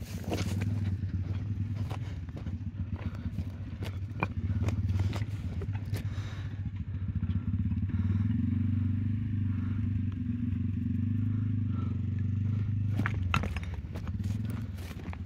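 A horse walking down a rocky trail, its hooves knocking and scraping on stones in scattered clicks, over a steady low drone that is the loudest sound.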